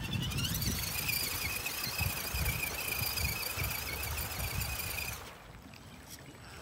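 Redcat Everest-10 RC rock crawler's electric motor and gearbox whining under throttle. The whine rises in pitch at the start, holds steady and cuts off suddenly about five seconds in, with low irregular splashing underneath as the truck drives through shallow water.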